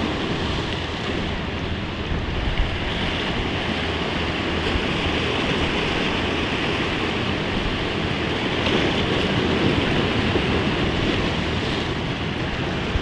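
Sea waves washing and breaking against shoreline rocks, a steady rushing, with wind buffeting the microphone.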